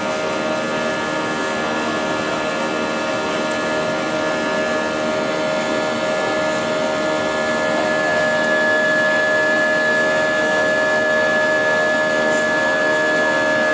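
Jet engines of an Airbus A320 (IAE V2527-A5 turbofans), heard from a window seat inside the cabin: a steady whine with several held tones. About eight seconds in it grows slightly louder as a higher tone comes up.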